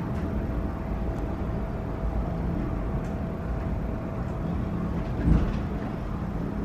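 Funicular railway car running on its incline track, heard from inside the cabin: a steady low rumble under a faint steady hum, with a single knock about five seconds in.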